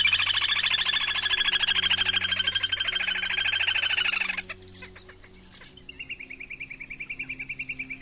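Little grebe's trilling call: a long, rapid, high trill lasting about four seconds, then after a short pause a second, quieter trill that drops slightly in pitch as it ends.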